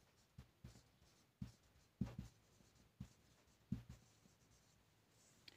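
Marker pen writing on a whiteboard: a handful of short, faint strokes and taps as a word is written out.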